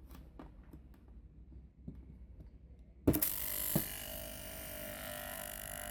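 A few faint clicks, then about three seconds in a washing machine drain pump's small electric motor is switched on and runs with a steady hum of several even tones. The pump has just had its shaft cleaned and oiled and sounds smooth, like new, after the repair of a noisy pump.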